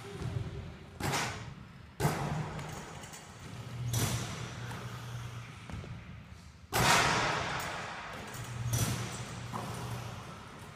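Basketballs thudding against the rim, backboard and hardwood floor in a large echoing gym. About five impacts, each ringing out in the hall; the loudest comes about two-thirds of the way through.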